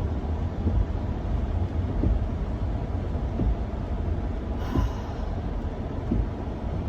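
Steady low rumble of wind and road noise inside the cabin of a moving car with its sunroof stuck open in the rain.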